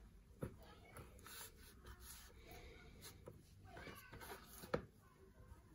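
Faint, distant voices of children playing outside: thin high-pitched calls and shrieks coming and going, which the cook takes for children at play. Light knocks from handling bowls sound now and then, the sharpest one near the end.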